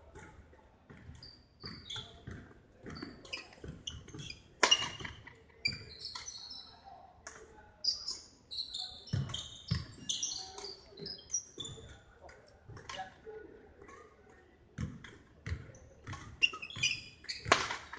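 Badminton rally: rackets striking the shuttlecock again and again, with sneakers squeaking and footsteps on the wooden court floor. The two sharpest hits come about five seconds in and near the end.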